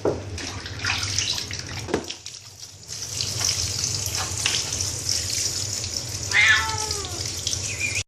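A domestic cat meows once, a single falling call about six seconds in, over steady running tap water, as a cat does while being bathed.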